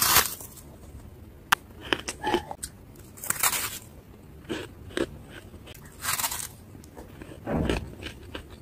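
Bites into blocks of squeaky dry freezer frost: a series of crisp crunches, four bigger bites a couple of seconds apart with smaller crackles between.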